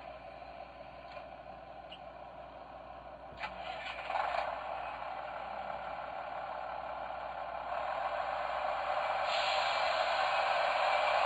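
Railway sound effect played through a Seiko radio-controlled alarm clock's speaker: a steady hiss-like running noise. It has a couple of clicks about three and a half seconds in, then grows gradually louder and brighter.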